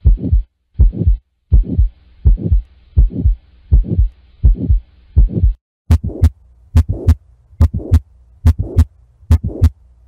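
Heart sounds with an aortic stenosis murmur: lub-dub beats at an even rhythm with a faint murmur filling the gaps between them. About halfway through it changes to a mitral valve prolapse sample, where the beats are joined by sharp clicks, the mid-systolic click typical of a prolapsing mitral valve.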